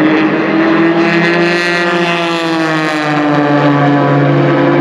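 Twin-turbo V6 of a Ford GT GTE race car and the engine of a Ferrari GTE race car running hard under acceleration as they pass one behind the other and pull away. The engine note is continuous, its pitch rising slightly and then easing off as the cars go by.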